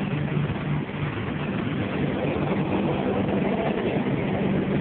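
Heavy engine idling steadily: a low, even hum with a rough noise above it.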